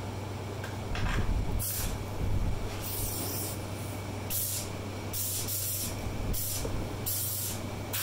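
Compressed air blowing from a blow gun on a workbench air hose in several short hissing bursts, fed by the tank of a small air compressor that has shut off. A steady low hum runs underneath.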